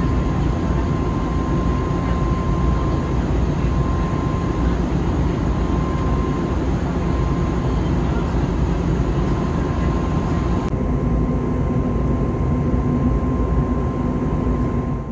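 Steady cabin noise of an Airbus A321neo in flight, heard from a window seat over the wing: the drone of the engines and the rush of air, with a thin steady whine running through it. About eleven seconds in, the sound changes, with less hiss and a low steady hum.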